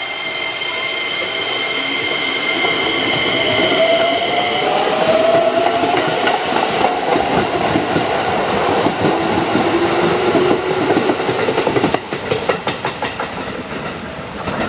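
Electric train accelerating away, its VVVF inverter and traction motors whining: a few steady high tones for the first several seconds, then a whine that climbs in pitch, and a second climb a few seconds later as it gathers speed. Wheels clack over rail joints more and more, and the sound drops about two seconds before the end as the train draws away.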